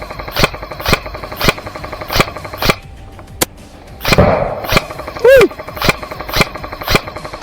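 Airsoft gun firing single shots in a steady rhythm, about two sharp cracks a second. A short burst of noise about four seconds in is followed by a brief pitched call that rises and falls.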